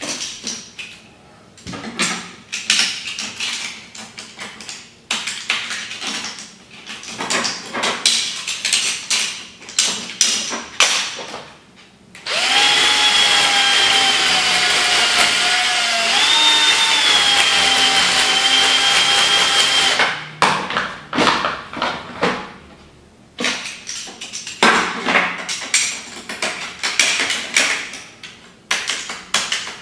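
Cordless drill boring a hole into a scooter's add-on battery casing: a steady whine of about eight seconds, starting about twelve seconds in, its pitch stepping up briefly partway through. Before and after it come clicks, taps and scrapes from handling the casing and tools.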